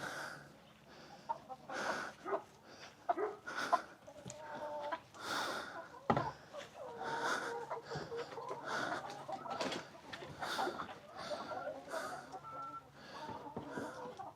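Chickens clucking and calling, with many short overlapping calls and occasional small knocks.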